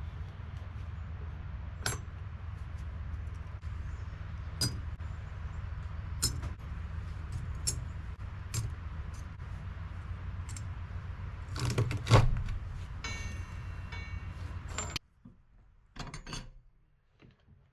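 Small pieces of cut steel clinking and tapping against metal over a steady machine hum. There is a cluster of loud knocks about twelve seconds in and a ringing clink just after, and the hum stops abruptly about fifteen seconds in.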